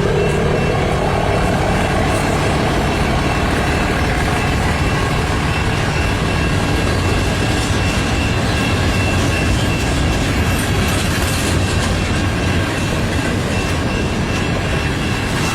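Long freight train of loaded coal cars rolling slowly past, a steady rumble of wheels on rail, with a thin steady high-pitched tone running above it.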